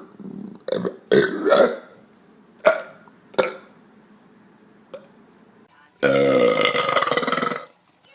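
A man belching: a few short belches, then one long, loud belch about six seconds in that lasts nearly two seconds.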